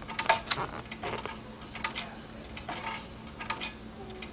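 Baby cradle swing's mechanism ticking as it swings, a pair of sharp clicks about every second, over a faint steady hum.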